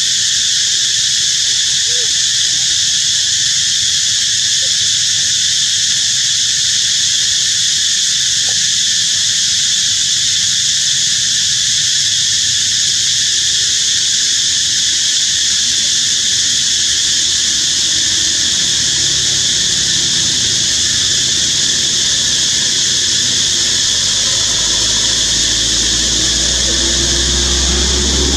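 Loud, steady high-pitched drone of an insect chorus, unchanging throughout. Near the end a low engine rumble with a slowly rising tone builds underneath.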